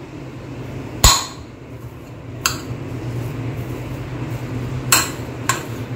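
Steel spoon mashing boiled potatoes in a ceramic bowl, knocking and scraping against the bowl: a few sharp clinks, the loudest about a second in. A steady low hum runs underneath.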